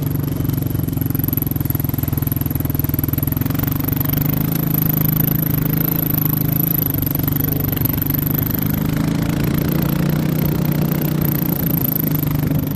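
Quad (ATV) engine running steadily at low speed while towing sleds through snow, a continuous drone with small shifts in pitch.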